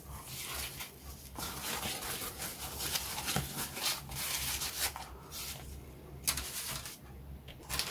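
Soft rubbing and rustling of a thin foam packing sheet being handled and slid off a plastic kit sprue, in uneven bursts that thin out in the last few seconds.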